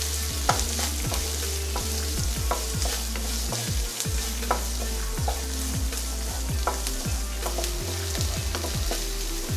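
Chopped onions sizzling in hot oil in a nonstick wok, stirred and tossed with a wooden spatula that scrapes and taps against the pan again and again. A steady low hum runs underneath.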